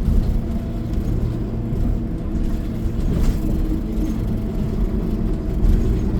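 City bus engine and drivetrain running, heard from inside the bus as a steady low rumble.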